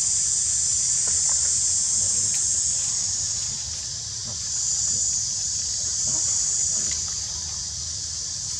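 Steady high-pitched drone of insects such as cicadas or crickets, with a low rumble underneath.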